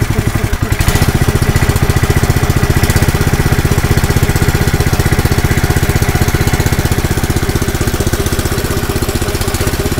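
Honda GX160 single-cylinder petrol engine driving an air compressor, its throttle opened up from a very slow idle about a second in, then running at a higher, steady speed.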